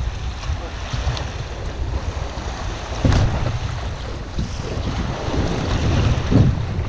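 Waves from a small storm breaking and washing over the rocks at the shoreline, with strong wind rumbling on the microphone. A louder surge comes about three seconds in.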